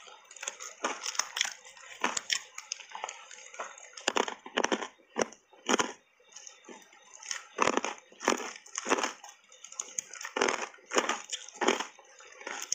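Hard reshaped ice coated in matcha powder being chewed in big mouthfuls: a rapid, irregular run of sharp crunches, with a brief lull about six seconds in.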